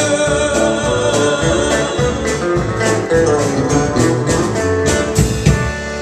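Live country band playing the closing bars of a song: guitar over a steady beat, ending on final hits near the end.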